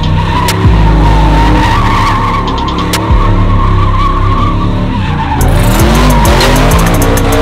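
Truck burnout: the engine runs at high revs while the rear tyres squeal against the pavement. About six seconds in, the revs dip and climb again.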